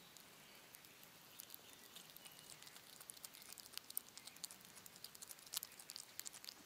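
Hedgehog chewing cheese: faint, irregular smacking clicks, coming quicker and louder in the second half.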